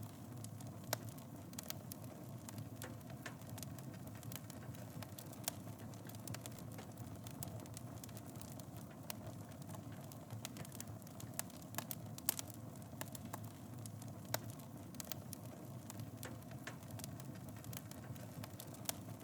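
Wood fire burning in a fireplace: a steady low rumble of flames with irregular crackles and pops, a few of them sharper than the rest.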